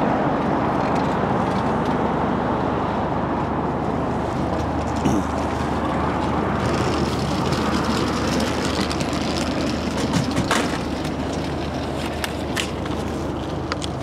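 Steady street traffic noise with a low, steady hum under it. A few sharp clicks and knocks come about ten seconds in and again a couple of seconds later.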